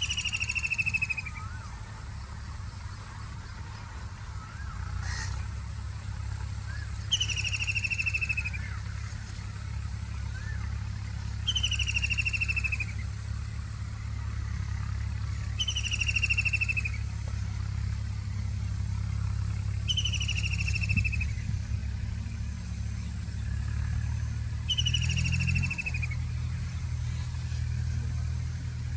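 White-throated kingfisher calling: a loud, descending, rattling trill of about a second, repeated six times at intervals of four to five seconds.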